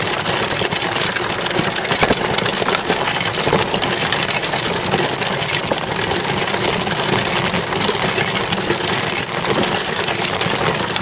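A child's bicycle rolling fast over asphalt, heard from a camera mounted on the bike: a steady, dense rattle of tyre and frame over the rough road.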